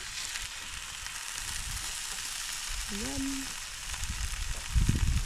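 Campfire burning with a steady hiss. Near the end come a few low thumps, and about three seconds in there is a brief gliding tone.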